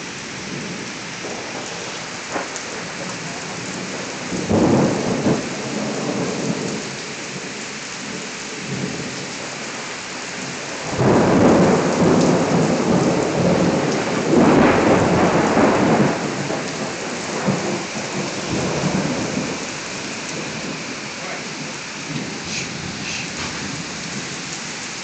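Heavy rain falling steadily through a close thunderstorm. Thunder rumbles about four to six seconds in, then a longer, louder rumble runs from about eleven to sixteen seconds in and dies away in weaker swells.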